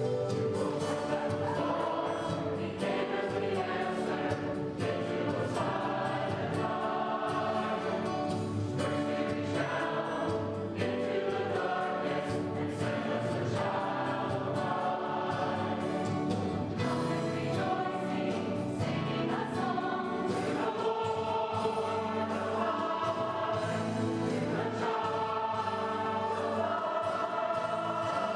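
Church choir singing with musical accompaniment.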